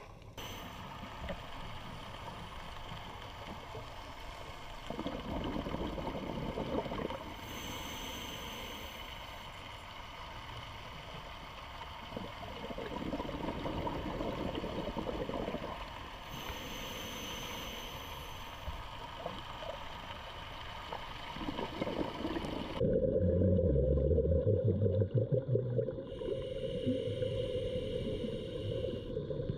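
Underwater sound of a scuba diver breathing through a regulator: a hiss on each inhalation and a low rumble of exhaust bubbles on each exhalation, repeating about every ten seconds. Near the end the sound changes abruptly to a louder, lower underwater rumble.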